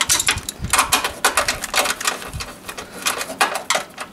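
Hand screwdriver driving a screw through the HID kit's ground-wire ring terminal into bare sheet metal, a run of sharp, irregular clicks, several a second, as the screw is turned and tightened.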